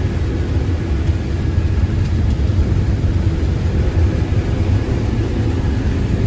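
Case IH 8120 combine harvester running steadily while harvesting corn: a continuous low machine drone.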